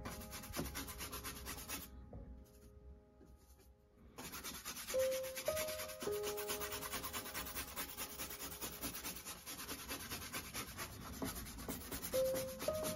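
Paintbrush scrubbing raw umber oil paint over a textured gesso-primed panel: a rapid scratchy rubbing, fainter for a couple of seconds about two seconds in, then steady again. A few soft music notes sound around five seconds in and again near the end.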